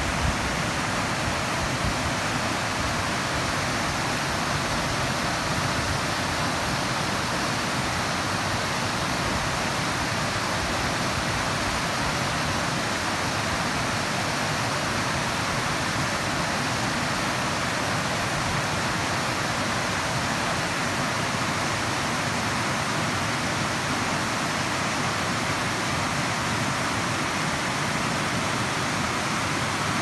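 Water rushing steadily over the Buckley Falls rock cascade on the Barwon River: an even, unbroken hiss of falling water.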